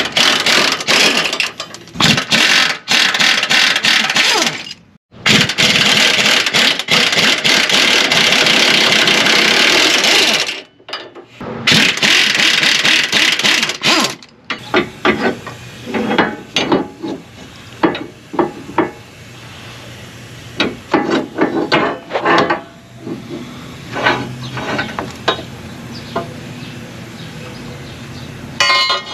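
Impact wrench hammering in several long bursts, loosening the sway bar's mounting bolts. It is followed by scattered clanks and knocks of metal parts and tools.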